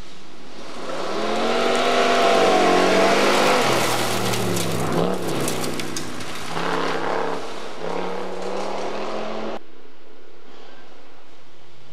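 Historic rally car's engine on a gravel stage, driven hard: the pitch climbs, drops and climbs again through several gear changes. A few sharp crackles come mid-way. It cuts off abruptly about two seconds before the end, and another car's engine starts rising near the end.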